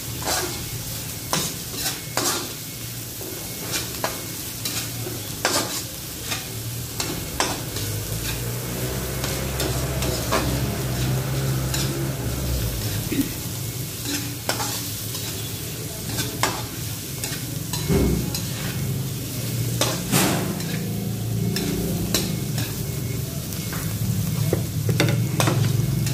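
Metal spatula scraping and clinking against a metal wok again and again while diced pork belly sizzles and fries in oil.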